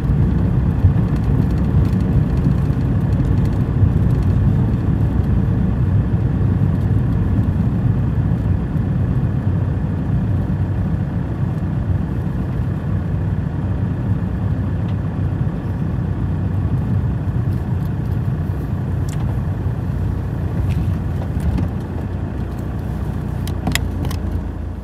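Car cabin noise while driving slowly: a steady low engine and tyre rumble, with a few light clicks near the end.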